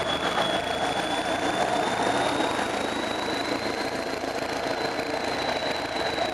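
Northern Ireland Railways Class 450 diesel-electric multiple unit pulling away, its diesel engine running steadily under power. A thin high whine rises slightly in pitch over it.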